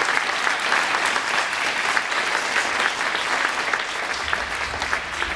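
Large audience of schoolchildren applauding, a dense patter of many hands clapping that begins to thin out near the end.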